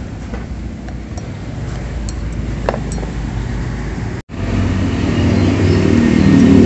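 An engine running steadily in the background, a low hum, with a few light metal clicks from parts being handled. The sound cuts out briefly a little past four seconds and comes back louder.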